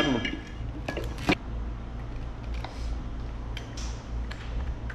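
Small clicks and taps of two-stroke engine parts being fitted by hand, with one sharp click a little over a second in, over a steady low hum.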